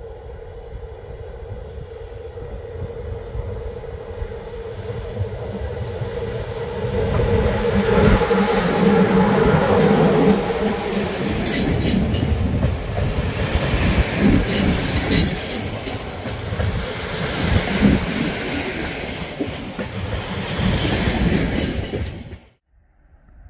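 A train passing close by, growing louder as it approaches, then clattering with repeated knocks of its wheels over the rail joints. The sound cuts off suddenly near the end.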